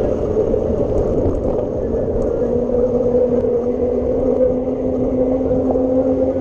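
Steady wind and road rumble from riding a bicycle along a road. A steady low hum joins it about two and a half seconds in.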